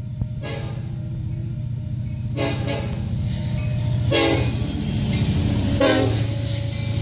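Union Pacific diesel freight locomotive sounding its air horn in four blasts about two seconds apart for a grade crossing, over the low rumble of its engine, which grows louder as it closes in and passes.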